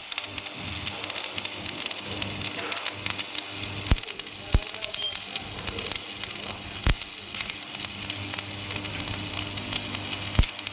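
Welding arc crackling and sizzling steadily on the economiser hopper, with a few louder sharp pops, over a steady low hum.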